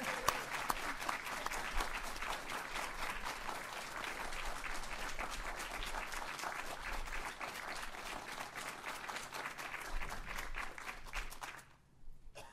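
Audience applauding, many people clapping steadily, stopping fairly abruptly near the end.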